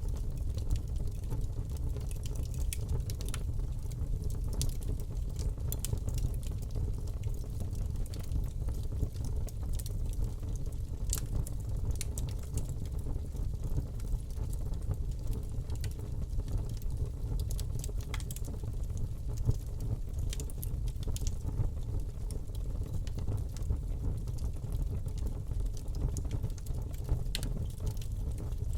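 Fire burning in a fireplace: a steady low rush of flames with scattered sharp crackles and pops at irregular moments.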